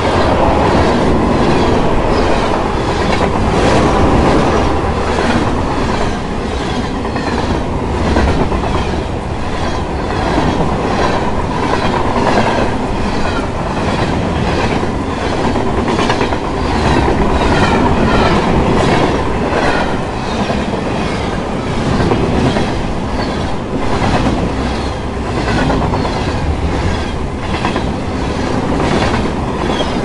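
Train cars rolling past at a steady speed, their wheels clicking over the rail joints in an even clickety-clack rhythm over a continuous rumble.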